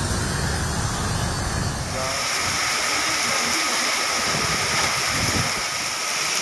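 Rain and traffic on a wet road. A low rumble for about the first two seconds changes abruptly to a steady hiss of falling rain and tyre spray from vehicles on the wet road.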